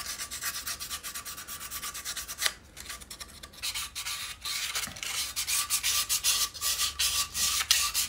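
320-grit sandpaper rubbed by hand over a Stihl 08S's magnesium casting, keying the surface with quick back-and-forth strokes. There is a brief pause with a single knock about two and a half seconds in, and the sanding is louder after it.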